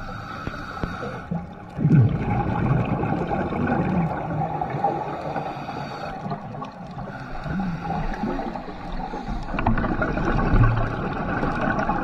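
Underwater sound of bubbling and gurgling water, with low moaning calls that swoop up and down in pitch every couple of seconds.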